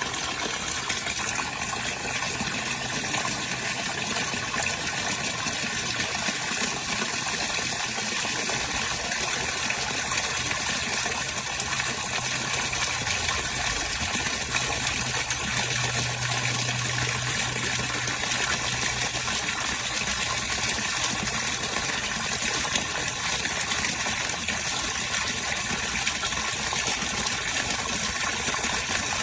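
Steady rush of water from a Bestway Lay-Z-SPA LED waterfall pouring into a hot tub, with a faint low hum underneath that grows louder for a few seconds about halfway through.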